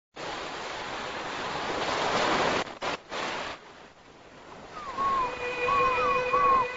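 Surf: a wave rushes up over the sand, swelling, cuts off briefly and washes back. Near the end, short high chirping calls repeat over a steady held tone.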